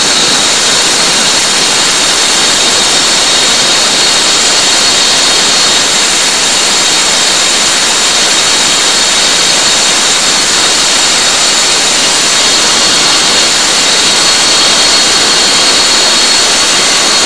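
Rotary cut-off saw running at full speed, its blade grinding steadily through a steel door hinge with a constant high whine.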